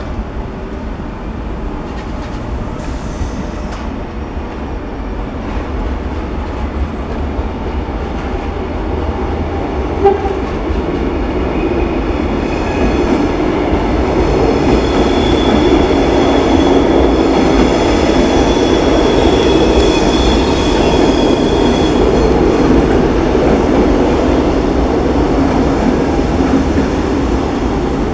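Thalys PBKA high-speed electric trainset rolling slowly past on station tracks: a rumble with wheel clatter that grows louder toward the middle, thin high steady tones over it for several seconds, and a single sharp clank about ten seconds in.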